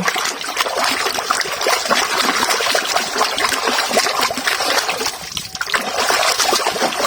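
Water splashing and trickling as a muddy toy is washed clean, with a brief lull about five and a half seconds in.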